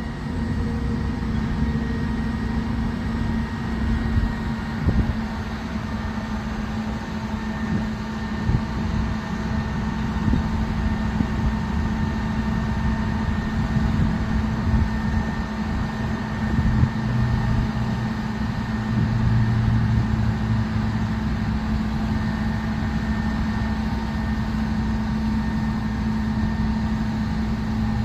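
Mobile crane's diesel engine running steadily under load as it lowers a heavy compressor, a constant low hum and rumble with a few light knocks.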